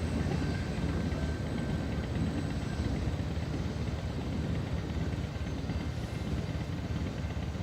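Low, steady rumble of a CN freight train rolling past, easing off slightly.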